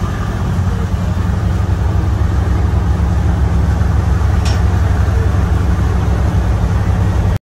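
Steady low drone of a large riverboat's single 829 hp diesel engine over a steady rushing noise, with one short click about four and a half seconds in. The sound cuts off suddenly near the end.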